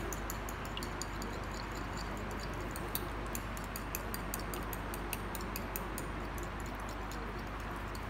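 A fork whisking a raw egg in a ceramic bowl, its tines tapping the bowl in a rapid, uneven run of light clicks.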